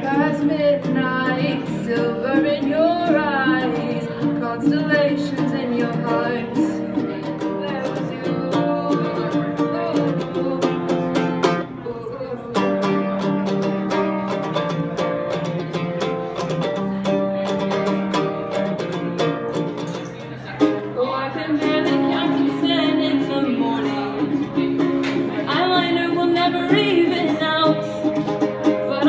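A woman singing while strumming a ukulele.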